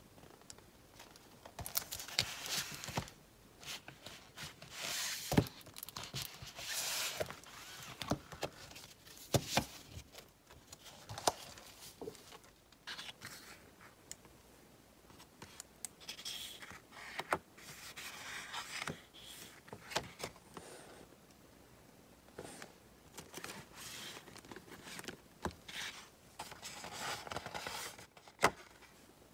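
Sheets of thick cardstock in a Prima Marketing 12-inch paper pad being lifted, flexed and turned over by hand: irregular rustling swishes of the card, with sharp snaps and taps as the sheets flip and settle.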